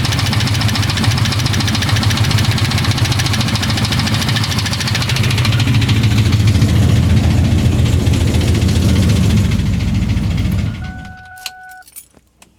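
Ford Mustang GT's 4.6-litre two-valve V8 running at idle with a ticking noise, then switched off near the end. After it stops, a short steady beep-like tone and a few clicks.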